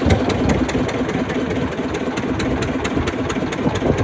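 Boat engine running steadily, with an even knocking beat about five times a second over a low hum.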